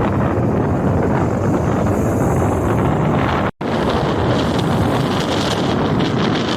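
Strong wind buffeting the microphone over the steady wash of rough sea surf, with a split-second dropout to silence about halfway through.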